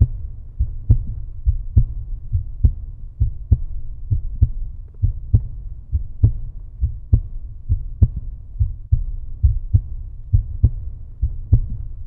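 Deep, low thumping pulse, a strong beat a little under once a second with softer beats between, like a heartbeat; an added outro sound track rather than anything from the car.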